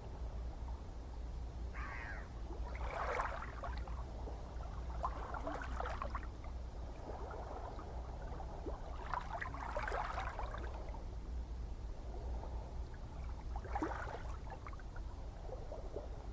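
Gentle ocean waves lapping and splashing about every four seconds over a low, steady rumble of the sea.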